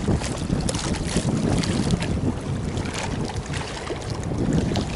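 Wind buffeting the microphone as a steady low rush, with scattered short clicks and ticks throughout.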